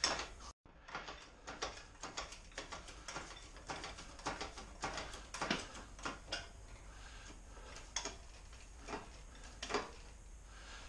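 Irregular, fairly faint metallic clicking and ratcheting from a shop engine hoist being worked into position over the engine bay. The clicks come several a second at first and thin out toward the end.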